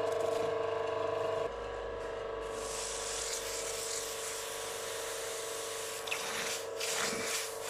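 Forge blower humming steadily over the charcoal fire. Then red-hot C70 carbon steel is quenched in water, and a hissing sizzle rises and fades over a few seconds as the water boils off the steel. A few sharp knocks follow near the end.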